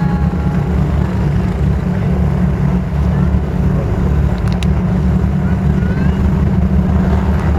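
A loud, steady, low engine drone with no change in pitch.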